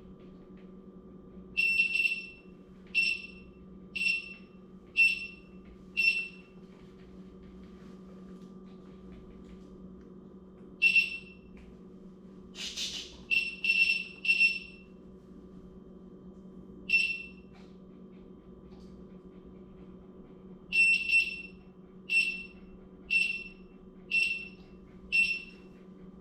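Begode A2 electric unicycle's buzzer beeping as its power button is held: short high beeps about once a second, five in a row near the start and five more near the end, with scattered beeps and one brief noisy burst between. The wheel does not switch on.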